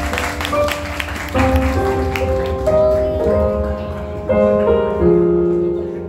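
A keyboard playing slow, held chords that change every second or so, with clapping fading out in the first second or two.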